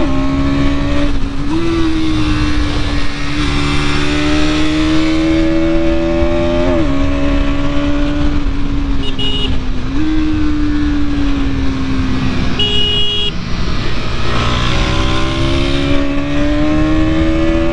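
Bajaj Pulsar NS200's single-cylinder engine running under way on the road, heard from the rider's seat. Its note rises and falls slowly with the throttle, drops sharply about seven seconds in, and steps up again around ten seconds.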